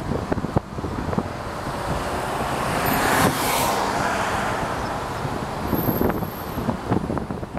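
Wind buffeting the microphone, with a broad rushing noise that swells about three seconds in and fades over the next few seconds.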